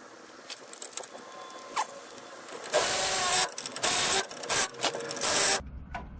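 A power tool running down the driveshaft flange bolts in several short, loud bursts with a whine, starting a few seconds in, after some light clinks of bolts and metal being handled.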